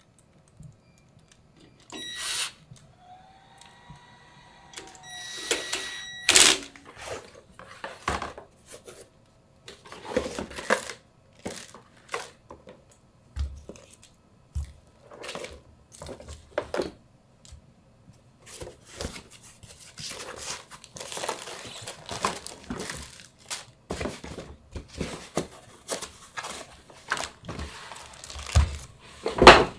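Plastic packaging crinkling and rustling, with irregular clicks and knocks of computer parts being handled, and a few short squeaky tones in the first several seconds.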